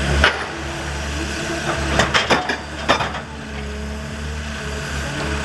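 John Deere forwarder's diesel engine running steadily while its crane lays a log onto the load. There is a sharp wooden knock just after the start and a cluster of knocks about two to three seconds in as the log strikes the logs on the bunk.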